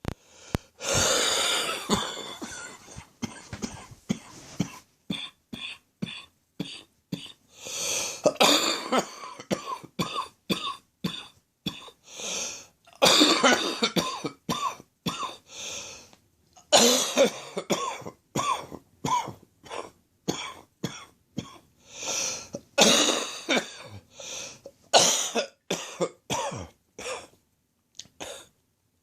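Deep, chesty coughing in repeated fits: bouts of several rapid hacking coughs every few seconds, with short single coughs and brief pauses between. It is a wet chest cough, which the cougher puts down to a lingering chest infection and not to smoking.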